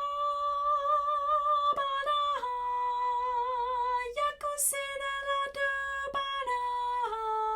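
A woman singing a phrase alone, without accompaniment, demonstrating it: long held notes with vibrato that start high and step down in pitch, with a brief break for breath about four seconds in.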